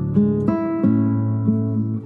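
Acoustic guitar music: single notes plucked over a sustained bass, a new note starting about every half second.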